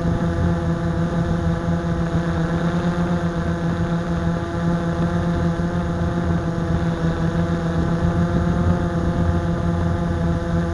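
Blade 350 QX quadcopter's four brushless motors and propellers running in flight, a steady buzzing drone of several pitches that waver slightly as the motors adjust speed, heard up close from the camera mounted on the aircraft.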